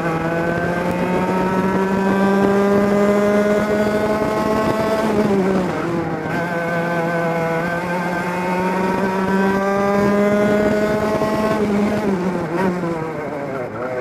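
Two-stroke kart engine heard onboard at full throttle, its note climbing steadily through the revs, easing off and dropping briefly about five seconds in, then climbing again before falling away near the end as the driver lifts for a corner.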